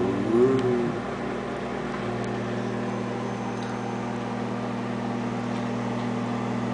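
Microwave oven running while it heats food: a steady electrical hum with a whir.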